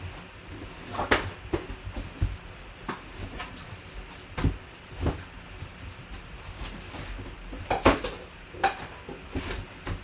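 Irregular clicks and knocks of objects being handled and set down, a dozen or so scattered through, the loudest about a second in and near eight seconds.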